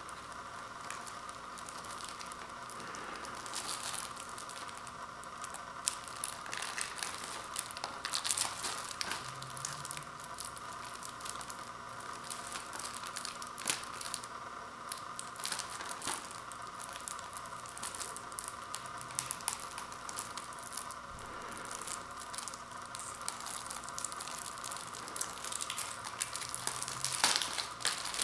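Plastic shrink-wrap on a Blu-ray case crinkling and scratching as fingernails pick at it along the case's edge, with scattered small clicks; the crinkling gets louder near the end.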